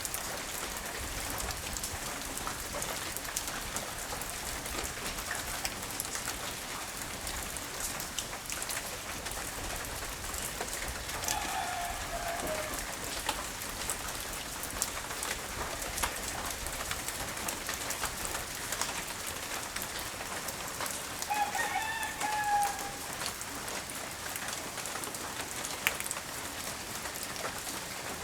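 Steady light rain pattering down. A rooster crows twice, once partway through and again later, the second crow a little louder.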